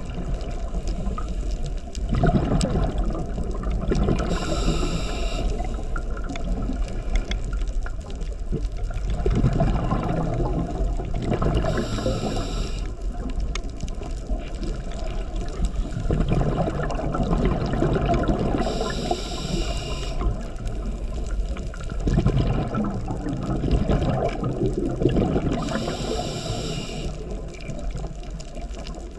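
Scuba diver breathing through a regulator underwater. Each breath brings a short hiss about every seven seconds, and between the hisses comes the gurgling rumble of exhaled bubbles, which swells for a few seconds at a time.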